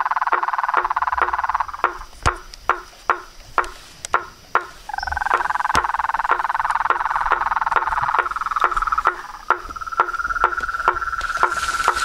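A night chorus of frogs: a dense, steady trilling with a loud, regular clicking call about two to three times a second. The trilling stops about two seconds in and returns about three seconds later.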